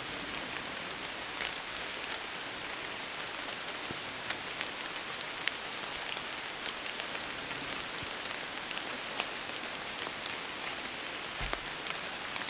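Steady patter of rain, with scattered sharp drop ticks and a single low thump near the end.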